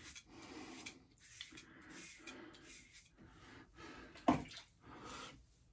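Safety razor strokes scraping through lather and stubble during a second shaving pass, a string of short, faint scrapes, with one brief louder sound about four seconds in.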